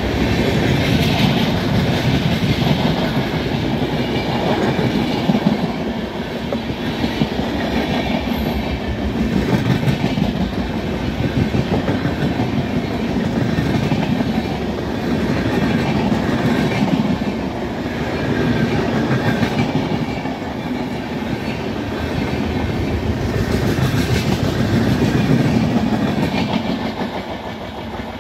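Coaches of a long Indian Railways passenger train passing close by at speed: a steady rumble with rapid clickety-clack of the wheels over the rail joints, swelling every couple of seconds as each coach's bogies go by. Near the end the last coach draws away and the sound eases.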